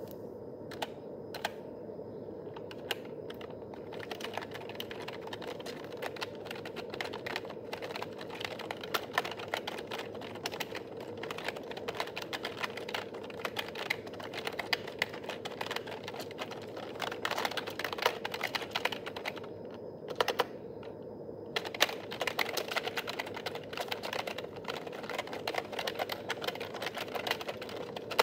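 Typing on a Nubwo NK-30 rubber-dome (membrane) keyboard: a fast, continuous run of key clicks. There are a few scattered keystrokes at first and a short pause about twenty seconds in, over a faint steady hum.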